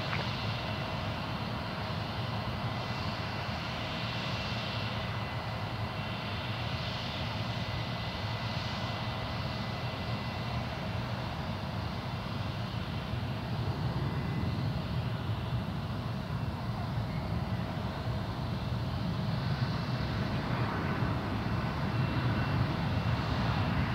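Jet airliner engines, here a Singapore Airlines Airbus A350-941 moving along the runway: steady engine noise with a faint high whine, slowly getting louder toward the end.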